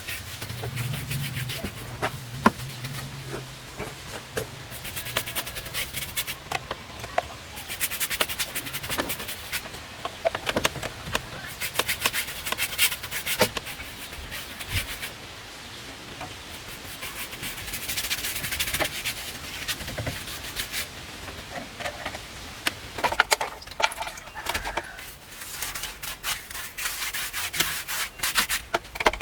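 Repeated rough scraping and rubbing strokes on a hard, gritty surface, coming in uneven runs with short pauses between them.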